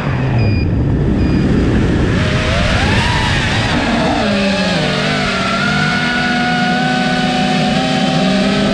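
FPV quadcopter's brushless motors and propellers whining, picked up on board with air rushing over the microphone. The pitch sits low during the dive from height, rises sharply about three seconds in as the throttle comes back up, then holds a steady whine that wavers with the throttle.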